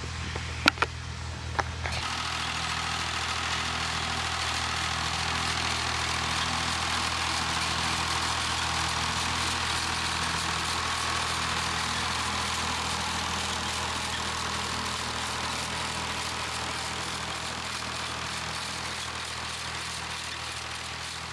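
Massey Ferguson 35 tractor engine running steadily as the tractor comes closer, growing a little louder towards the middle and fading again near the end. Two or three sharp clicks come in the first two seconds.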